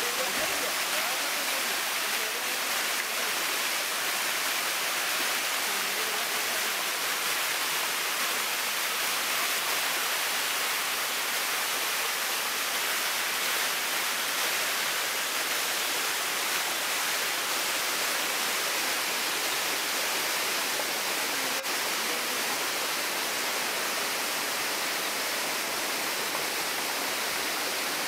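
Steady, even rush of water from a stream tumbling over rocks below a small waterfall, a continuous hiss without break.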